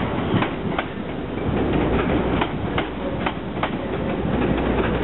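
Passenger train running slowly through the station, its wheels clicking over rail joints two or three times a second above a steady rumble.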